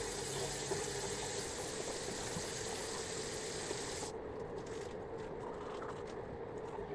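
Water running steadily from a tap, a continuous hiss that stops abruptly about four seconds in, leaving faint room noise with a few soft clicks.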